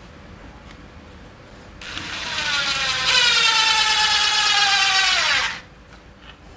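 DeWalt DCF787 cordless impact driver driving a screw into plywood. It starts running about two seconds in and gets much louder about a second later as the hammer mechanism starts impacting, a loud buzzing rattle. The pitch drops as the screw seats, then it stops suddenly.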